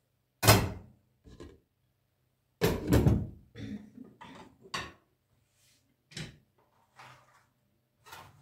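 Kitchen clatter of dishes and utensils being handled while food is served out. A sharp knock comes about half a second in and a heavier clatter around three seconds, then a string of lighter knocks and scrapes.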